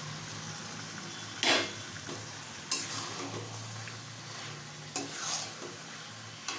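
Metal spatula stirring raw mutton pieces through sizzling spice paste in a metal kadai, with a steady sizzle and a low hum underneath. Three sharper scrapes of the spatula against the pan stand out, the loudest about a second and a half in.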